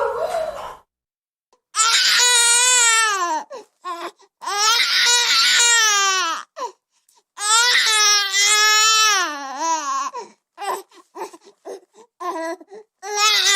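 Newborn baby crying just after birth: three long wails, each a second or two long, with short breaths between, then a run of short gasping sobs, and a new wail starting near the end.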